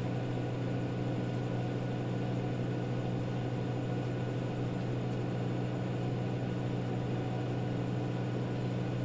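Steady low hum of room background noise, unchanging throughout, with no speech.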